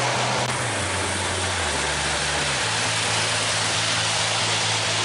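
Lionel 218 Santa Fe Alco diesel set running around three-rail O-gauge tinplate track with its passenger cars: a steady whirring roll of wheels and motor, with a low hum underneath that shifts pitch a few times.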